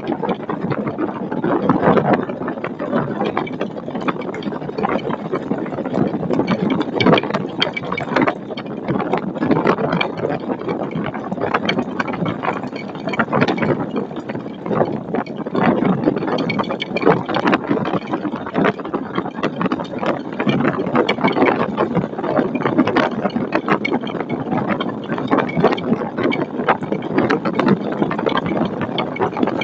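Storm wind buffeting the nest webcam's microphone: a steady rushing roar, thick with irregular knocks and clicks.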